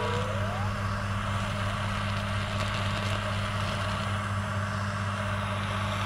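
Butane torch flame burning steadily, a constant hiss over a low hum.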